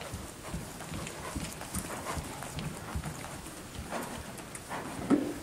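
Hoofbeats of a ridden horse trotting on indoor arena footing: a run of dull thumps. There is a brief, louder sound about five seconds in.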